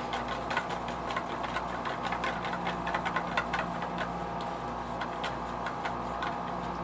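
Many small, irregular clicks and crackles of tape being handled and pressed down by hand on a fishing lure.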